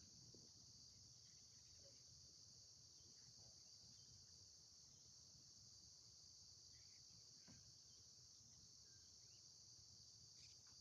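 Faint, steady trilling of crickets.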